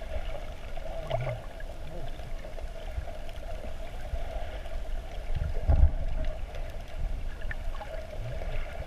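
Underwater sound picked up by a camera just below the sea surface: a muffled low rumble of moving water with a steady hum over it and a few faint clicks, swelling into a louder surge about six seconds in.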